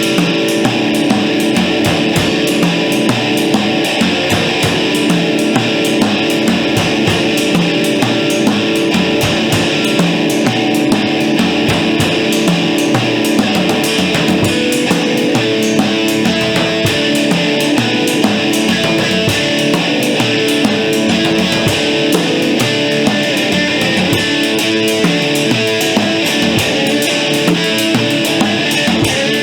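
Rock band playing loud: electric guitar with a drum kit, a dense, steady wall of sound with quick drum strikes throughout.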